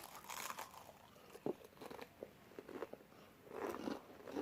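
Sweet potato chips being bitten and chewed, a series of short crisp crunches. There is a cluster at the start, a few single crunches in the middle and another cluster near the end.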